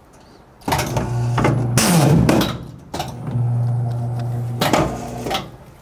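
Triumph 5260 guillotine paper cutter running through a cut on a stack of postcards: two spells of steady motor hum, each ending in a louder rush, about two seconds and five seconds in.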